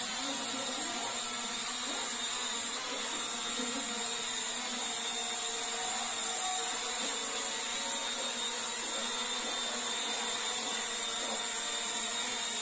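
Small drone's propellers and motors giving a steady high buzz while it flies.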